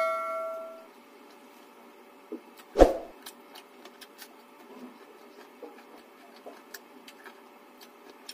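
A bell-like chime, the notification sound of a subscribe-button animation, fades out in the first second. About three seconds in comes a single sharp knock, then faint small clicks of a person eating rice and fish curry by hand.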